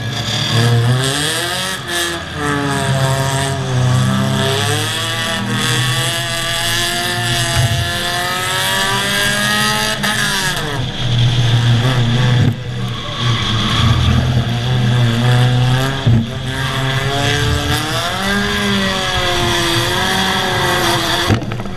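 Race car engines revving and easing off over and over, their pitch rising and falling, under a steady rush of wind and road noise. There is a sharp knock about three-quarters of the way through.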